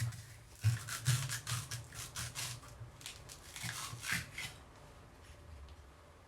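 Quick repeated scraping strokes, about three or four a second, running for a few seconds and then stopping.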